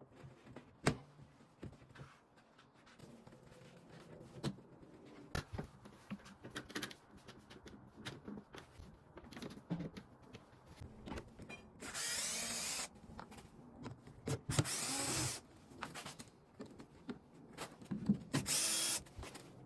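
Cordless drill-driver driving screws in three short runs of about a second each, about two-thirds of the way in and near the end. Scattered light knocks and clicks of parts being handled come between the runs.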